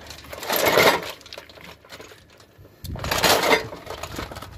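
Steel planetary gears and a planet carrier from a Kato HD512E excavator's final drive clinking against each other and the metal basin as they are scrubbed by hand in oily wash liquid, with the liquid sloshing. Two bursts of handling, about half a second in and about three seconds in.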